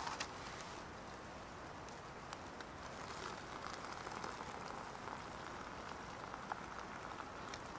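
Hot water poured from a small camping kettle into a foil freeze-dried meal pouch: a soft, steady trickle starting about three seconds in. Light drizzle patters underneath, with a few small ticks.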